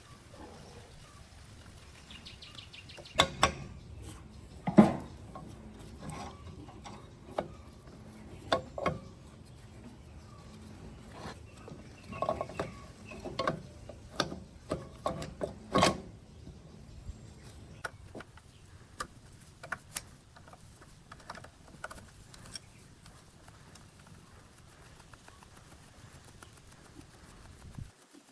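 Irregular knocks and clicks of handling or striking, with the loudest about 3, 5 and 16 seconds in, growing sparser and fainter after about 17 seconds.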